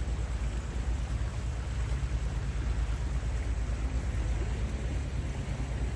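A cruising houseboat's engine running with a steady low rumble, under an even hiss.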